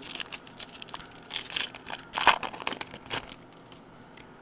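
Foil trading-card pack wrapper being torn open and crinkled by hand: a run of crackling bursts, loudest just after two seconds in, that stops about three seconds in.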